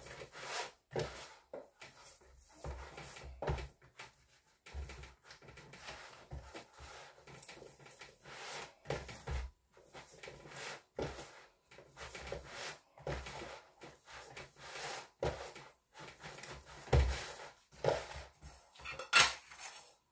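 Sourdough bread dough being kneaded by hand in a plastic bowl: an irregular run of dull thumps and knocks from hands and bowl, the loudest two near the end.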